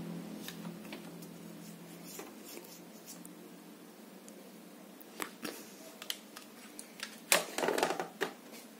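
Handling noise from a small plastic set-top box: a few light clicks and taps about five to six seconds in, then a louder cluster of knocks and scraping near the end as it is set down on top of its cardboard box.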